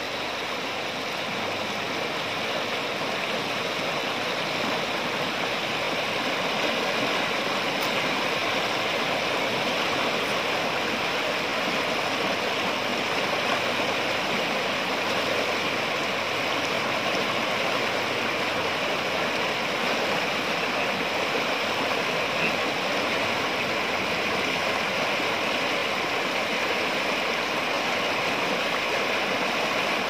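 River rapids rushing over and around boulders: a steady, even rush of whitewater.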